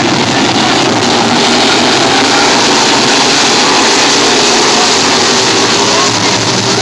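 A field of modified race cars' engines running together as a pack, a loud, steady drone of overlapping engine notes.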